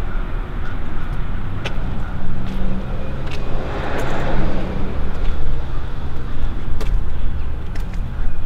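An engine idling steadily, with a few light clicks and a brief swell of noise about four seconds in.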